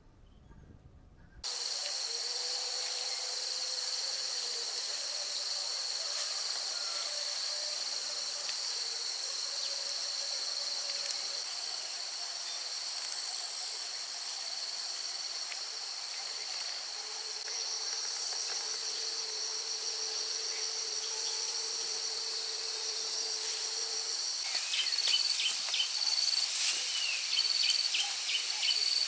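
Insects shrilling in a steady, high continuous drone, starting suddenly about a second and a half in. Near the end, rapid pulsing chirps join in over the drone.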